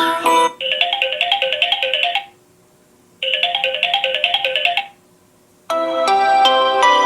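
Samsung Galaxy J6 (2018) stock ringtones. The first tune ends, then a short, fast run of chiming notes plays twice with about a second's pause between. Another fuller ringtone begins near the end.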